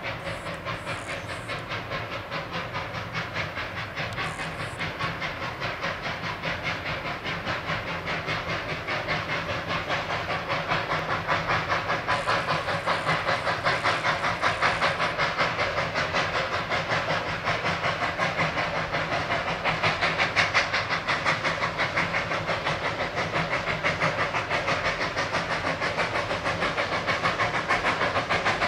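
Victorian Railways NA class 2-6-2T narrow-gauge steam locomotive working hard, its exhaust beating in a quick, even rhythm with steam hiss, growing steadily louder.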